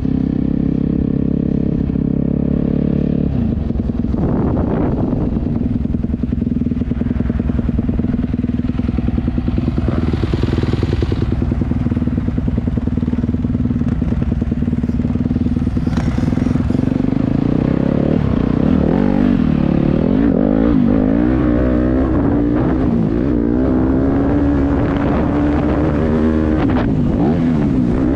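Motocross bike engine running close by, steady at first, then revving up and down again and again through the second half as the throttle is worked.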